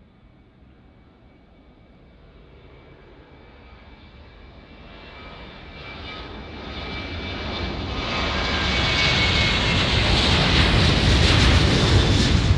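Twin CFM56 turbofan engines of a Royal Australian Air Force E-7A Wedgetail at high thrust on its takeoff roll, growing steadily louder as the jet closes in and passes. It starts as a faint thin whine and builds to full, loud jet noise near the end.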